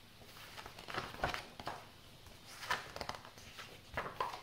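Pages of a picture book being turned and handled: several soft paper swishes and rustles.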